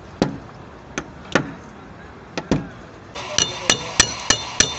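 Rubber-headed mallet knocking on a car's body panel during paintless dent repair. There are a few spaced strikes, then from about three seconds in a quicker run of sharper knocks, about three a second, with a light metallic ring.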